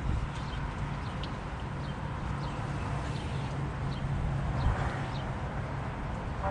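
Flexible fillet knife slicing Spanish mackerel fillets on a plastic cutting board, with faint taps and scrapes. Small birds chirp in short high notes throughout over a steady low rumble.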